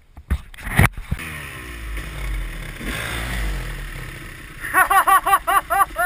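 Dirt bike engine running, its pitch sliding down through the middle, then revved in a quick run of short throttle blips, about six a second, near the end, as the bike is worked out of a creek it is stuck in. A couple of sharp knocks sound in the first second.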